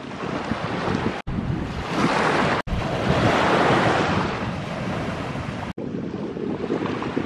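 Small sea waves washing onto a sandy beach, with wind buffeting the microphone. The sound breaks off for an instant three times.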